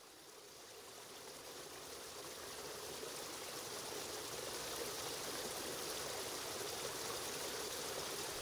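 Steady rushing-water sound fading in from silence over the first few seconds, then holding even.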